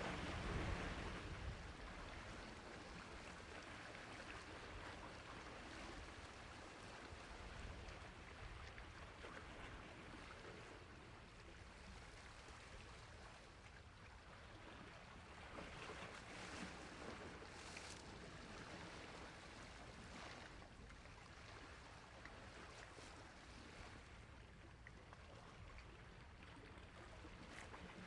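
Faint, steady rushing noise.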